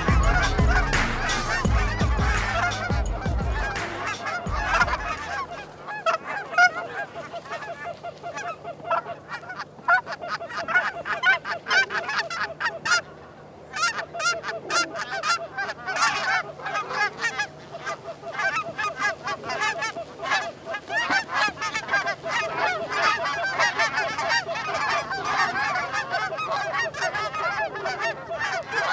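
A flock of geese honking, many short calls overlapping in a dense chatter. A deep low rumble sits under the calls for the first five seconds and then stops.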